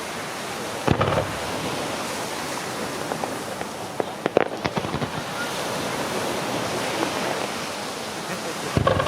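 Aerial fireworks going off: a bang about a second in, a quick cluster of sharp cracks around four to five seconds, and another bang near the end, over a steady rushing hiss.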